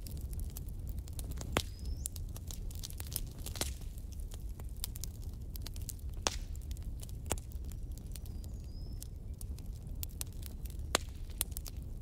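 Wood fire crackling, with irregular sharp pops of different strengths, a few of them louder, over a steady low rumble.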